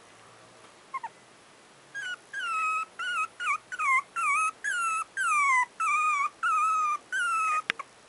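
Month-old Papillon puppy crying: two brief squeaks about a second in, then about a dozen short, high cries in quick succession, each dipping in pitch.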